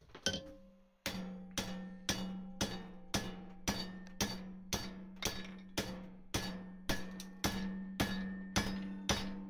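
Ball-peen hammer striking a steel strip clamped in a bench vise, bending it over a steel box section. One blow, then from about a second in a steady run of blows about two a second, each with a ringing metallic note.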